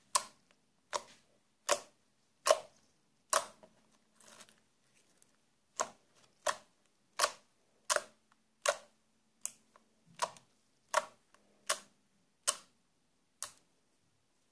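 Foamy glass-cleaner slime being pressed by hand, with a sharp click or pop at each press, about four every three seconds. The presses pause for about two seconds near the middle.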